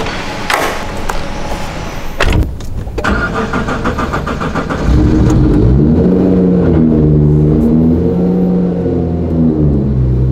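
A car door shuts with a thud. A Nissan GT-R R35's twin-turbo V6 then cranks on the starter for a couple of seconds. It catches about five seconds in with a short rev that rises and falls, then settles into a steady raised idle of about 2,000 rpm, typical of a cold start.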